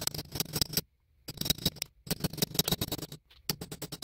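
Rapid, light taps of a small hammer on a nail punch, metal on metal, driving into the locking piece of a Mercedes/Chrysler Crossfire ignition key assembly held in a vise. The taps come in about four quick runs with short pauses between them.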